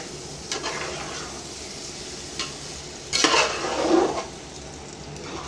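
Metal spatula stirring fried bitter gourd into hot, oily masala in a metal pot, over a steady frying sizzle. It gets louder for about a second, about three seconds in.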